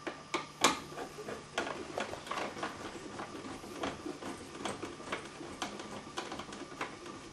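Irregular small metallic clicks and taps, a couple of sharper ones about half a second in, as a light switch's steel mounting strap and its device screw are handled and the screw is threaded part way into the electrical box by hand.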